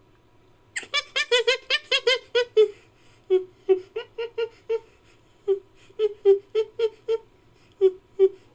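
Ape-like creature call built from chimpanzee and orangutan recordings: a string of short, pitched, laugh-like panting calls starting about a second in, fast at first (about six a second), then slowing to about three a second.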